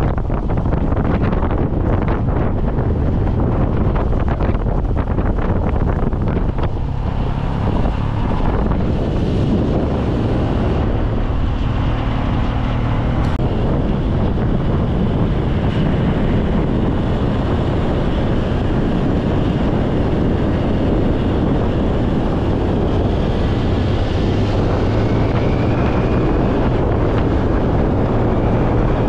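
Wind buffeting the microphone on a moving motorcycle, with the motorcycle's engine running steadily underneath.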